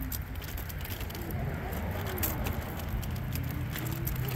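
Street ambience: a steady low hum of vehicle traffic with scattered light clicks.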